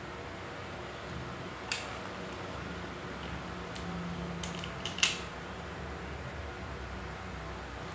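A few light metallic clicks and knocks from handling a replica revolver and its parts, the loudest about five seconds in, over a low steady hum.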